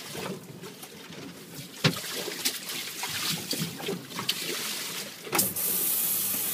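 Waves sloshing and slapping against a small boat's hull, with scattered knocks and clicks. A louder rushing hiss comes in over the last second or so.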